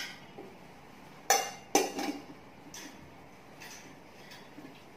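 Aluminium lid being set onto a metal steamer pot: two sharp metallic clinks about a second and a half in, followed by a few lighter knocks as it settles.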